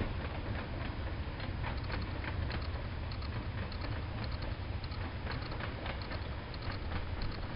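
Long ballast train of loaded wagons rolling past, a steady low rumble with many irregular small clanks and squeaks from the wheels and couplings.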